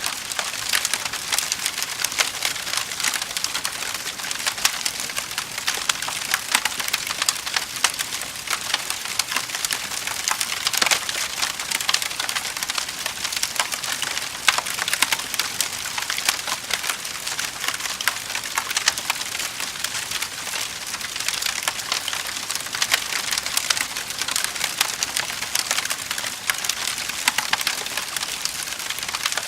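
Wood fire crackling in a fireplace: a steady hiss full of sharp pops and snaps.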